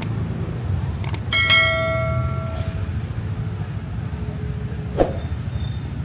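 A single metallic ring, struck once about a second in, with a bright bell-like tone that fades over about a second and a half. Under it runs a steady low street rumble, with a few sharp clicks.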